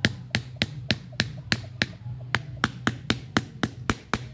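A quick series of sharp knocks, about three to four a second, as a notched wooden trap stake is struck to tap it down into the ground.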